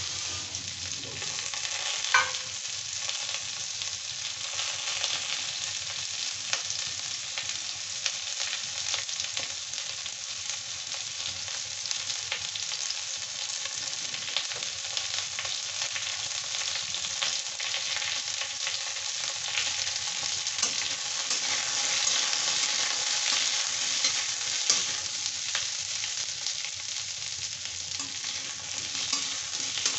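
Chunks of parwal (pointed gourd) sizzling and crackling steadily in hot oil in a wok, with one sharp knock about two seconds in. Near the end a metal spatula stirs and scrapes the pieces around the pan.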